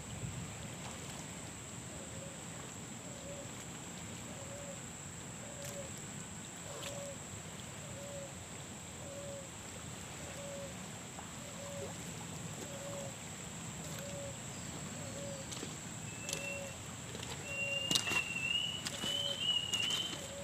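Steady flow of a river with light splashing as bamboo stalks are washed by hand in the shallows. A short low call repeats about once a second throughout. Near the end a bird chirps, and there are crunching steps on river pebbles.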